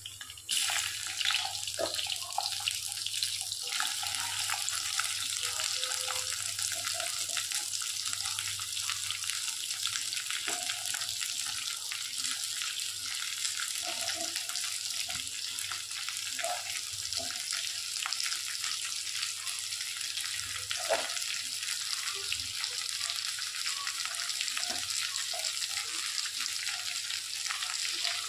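Hot oil sizzling and crackling in an unglazed clay pot as sliced okra and onions fry in it.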